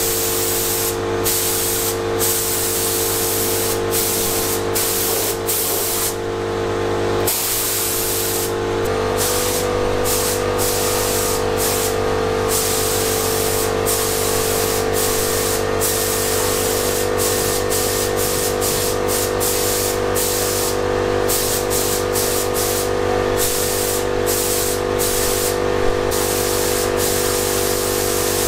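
Gravity-feed paint spray gun hissing as it sprays primer, in long passes broken by many brief pauses where the trigger is let off between strokes. A steady machine hum runs underneath.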